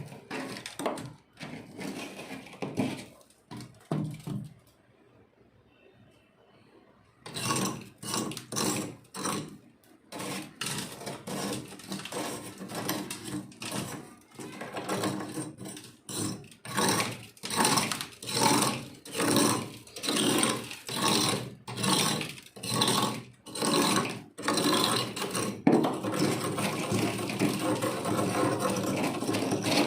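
Close-miked crunching of soft freezer frost being chewed, a run of crisp crunches about once a second after a brief pause, becoming denser and steadier near the end.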